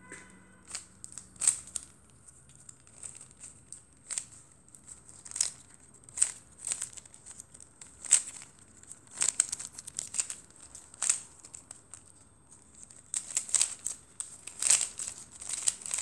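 Plastic 3x3 Rubik's cube being scrambled: its layers turned by hand in irregular clicks and rattles, bunching into faster runs in the last few seconds.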